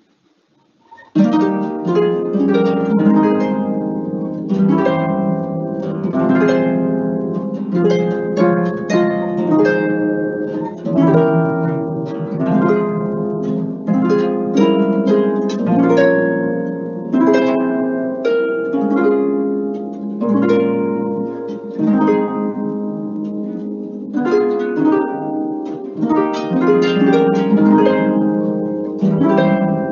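Concert harp played solo, starting about a second in: a continuous run of plucked notes and chords that ring on and overlap.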